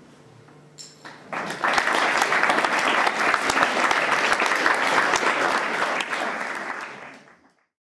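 Theatre audience applauding, starting about a second in and fading out near the end.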